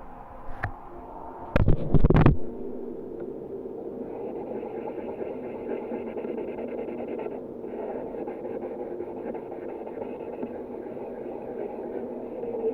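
A short clatter of sharp knocks about a second and a half in, then a steady hiss that grows fuller about four seconds in, as a pancake cooks in the pan.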